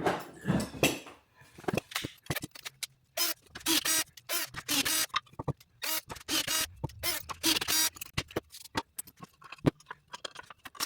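Threaded inserts being driven into a wooden piece: a rapid, uneven run of short bursts.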